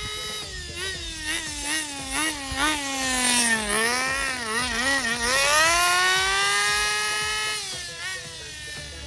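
Kyosho Mantis 1/10 nitro RC car's glow engine revving as it is driven. The pitch wobbles up and down with quick throttle blips, climbs about halfway through and holds high for a couple of seconds, then drops near the end.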